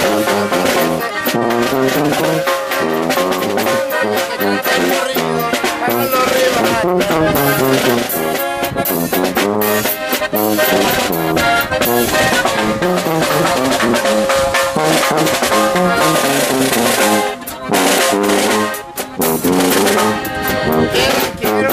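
Song playing an instrumental passage in banda style: a brass section of trumpets and trombones over a steady drum beat, with long held brass notes in places.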